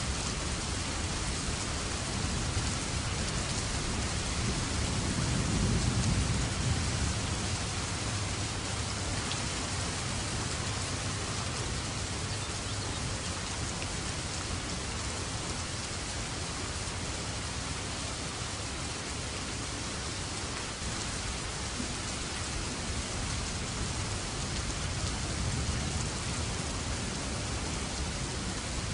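Steady heavy rain falling, with a low rumble of thunder swelling about five seconds in and a fainter one near the end.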